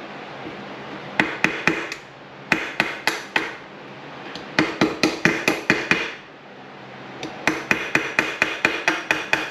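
Hammer blows driving parts down onto an RB26 individual throttle body's shaft, metal on metal with a short ring. They come in four quick runs, the last two longer at about eight or nine blows each. The parts go on tight because the zinc coating leaves little clearance.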